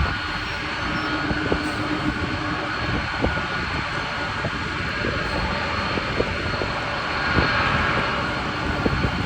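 Jet engines of a Boeing 747 Dreamlifter running with a steady, even rush of noise and a thin high whine, as the cargo jet goes through its take-off.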